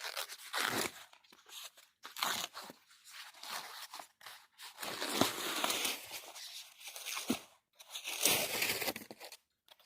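Packaging being torn open and crinkled by hand as an LED light bar is unwrapped: irregular bursts of rustling and tearing, with a few short sharp clicks.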